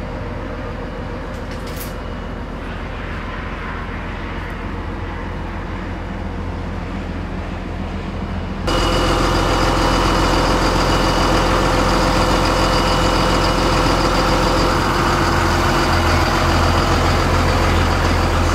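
An engine running steadily with an even drone, which becomes abruptly louder about nine seconds in.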